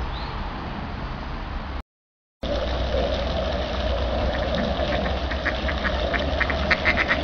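Mallard ducks quacking in a rapid run over the steady splashing of a pond fountain. Before a brief dropout, only outdoor background noise.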